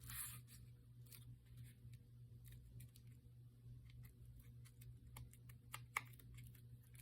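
Faint scattered clicks and light taps of craft materials being handled on a table, with one sharper click about six seconds in, over a steady low hum.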